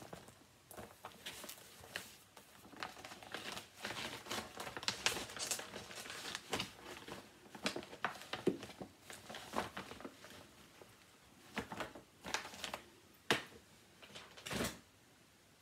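Paper and stitching project materials rustling and crinkling as they are handled and rummaged through: an irregular run of crackles and light taps, with a few louder ones near the end.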